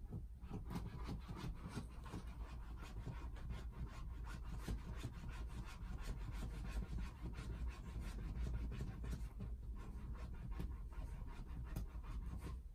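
A cat grooming, its rough tongue licking fur in quick rhythmic strokes, several a second, with a short pause near the end.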